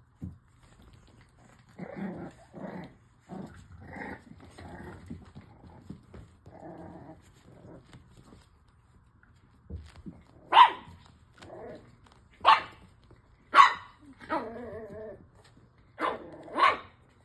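Six-week-old French bulldog puppies play-fighting, growling in a string of short grumbles. From about ten seconds in come about five sharp, loud barks, with a wavering growl between them.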